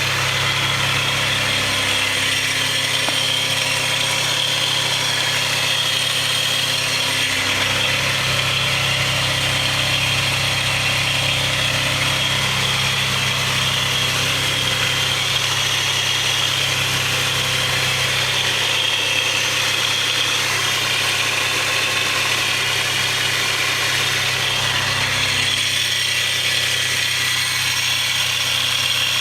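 Twin-turbo 3000GT/Stealth's 3.0-litre V6 idling steadily, heard from underneath, with a constant high hiss-like whine over the low hum of the engine. It carries an unidentified noise on one side of the motor that the owner cannot place, and which is not the lifter tick heard at start-up.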